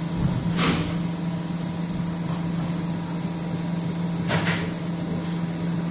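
FD-60A thread rolling machine running through-feed on pipe stock with a steady low hum, broken twice by a sharp metallic clank that rings briefly, about three and a half seconds apart.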